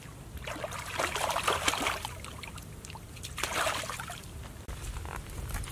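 Large fish being swished by hand through shallow muddy water, splashing and sloshing in two bouts: one about half a second in and another about three and a half seconds in.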